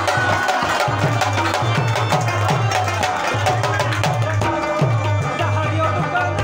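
Live tabla playing a quick, steady rhythm, the bass drum's deep strokes bending in pitch, over a rubab and harmonium melody.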